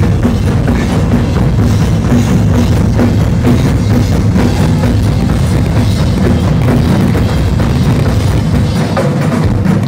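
Loud live drumming: a double-bass-drum rock kit and several drummers on large floor drums playing together in a dense, continuous jam.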